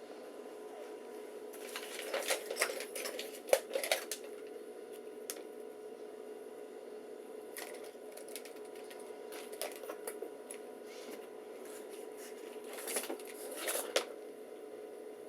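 Hands handling computer hardware: bursts of sharp plastic clicks and clatter, one a couple of seconds in and another near the end, with a few single clicks between, over a steady hum.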